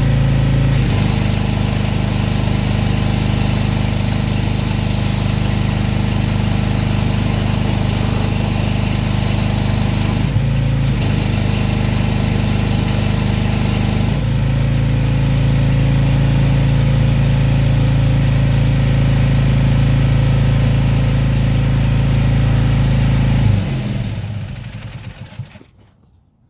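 Pressure washer's petrol engine running steadily under load. Its note shifts briefly a few times, then it winds down and stops near the end.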